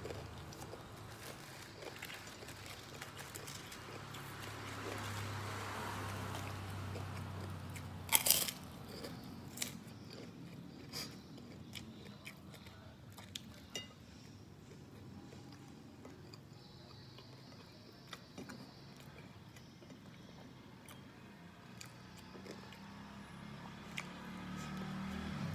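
A man chewing mouthfuls of rice and gudeg, eaten by hand: soft mouth and chewing noises with scattered small crunchy clicks. The loudest is a single sharp crack about eight seconds in.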